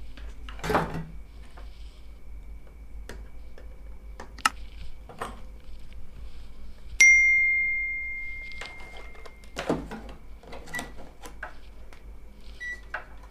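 Scattered clicks and knocks of tools being handled on a workbench, with one bright metallic ding about seven seconds in that rings out and fades over about two seconds. A faint steady high tone sounds underneath.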